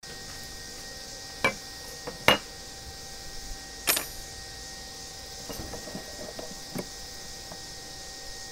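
Metal parts and tools set down and handled on a wooden tabletop: a few sharp knocks, the one about four seconds in with a brief metallic ring, then a run of lighter clinks and rattles as pliers are worked on a steel bracket.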